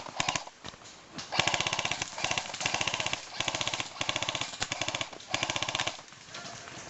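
Airsoft rifle firing on full auto: a string of short bursts of rapid clicking shots, about fifteen to twenty a second.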